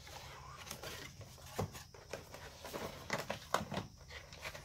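Soft rustling and light taps of a product box and its packaging being opened and the contents handled, in scattered small clicks.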